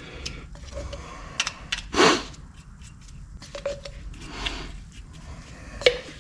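Light hand-work noises on a wheel hub: scattered small clicks and taps, two brief scrapes and a few short faint squeaks, made while anti-seize is dabbed onto the new hub's wheel studs.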